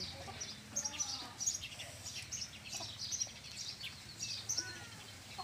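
Birds chirping in the background: many short, high chirps repeating every half second or so.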